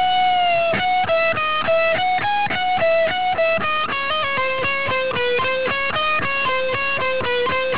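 Electric guitar playing a single-note lick slowly, in F sharp minor, drawing on the Dorian scale and the blues scale with its flat fifth. It opens on one long held note, then runs on in separate notes at about three a second.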